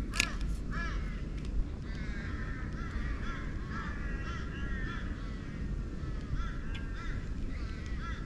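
Birds calling in a run of short, repeated, arching calls over a steady low wind rumble on the microphone, with a sharp click just after the start and another about a second and a half in.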